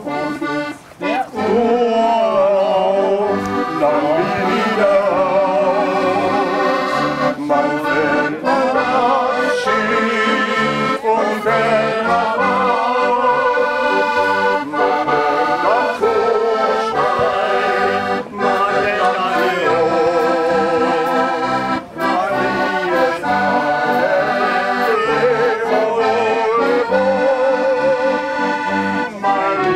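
Accordion playing a tune, held chords and melody running on with short breaks between phrases.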